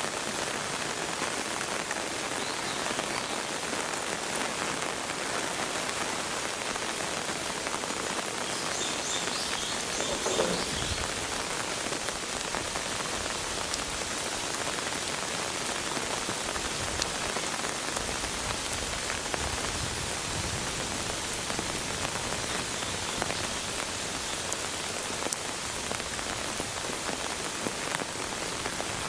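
Steady rain falling on wet rock and concrete, with a single short knock about ten seconds in.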